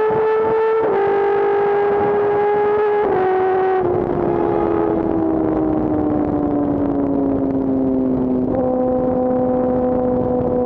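Kawasaki sport bike engine running at high revs at highway speed, a steady whine over wind rush, dipping in pitch twice in the first few seconds. From about four seconds in the throttle eases and the pitch falls slowly as the bike slows, and the tone changes about eight seconds in.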